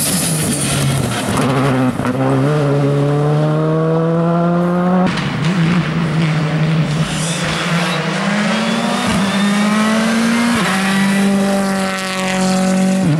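Two rally cars passing at speed one after the other, a Škoda Fabia R5 and then a Ford Fiesta, their turbocharged four-cylinder engines rising in pitch through the gears with a drop at each upshift. A change in the sound about five seconds in marks the change from the first car to the second.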